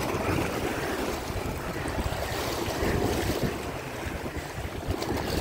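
Choppy sea waves washing and splashing against and over a low concrete walkway, with wind rumbling on the microphone.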